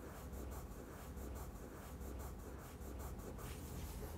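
Faint, quick strokes of a drawing tool scratching across paper, several a second, as the artist draws.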